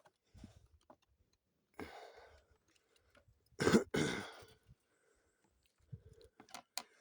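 A man's breathing and mouth sounds close to the microphone: a short breath about two seconds in, a louder and longer exhale about three and a half seconds in, and a few small clicks near the end.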